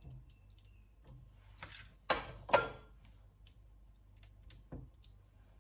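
A metal spoon clinks twice against a glass dish while scooping empanadilla filling, two sharp clicks half a second apart with a brief ring, followed by a fainter tap near the end.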